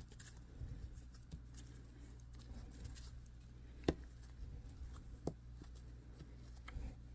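Quiet room tone with a steady low hum and a few light clicks from handling, two sharper ones about four and five seconds in.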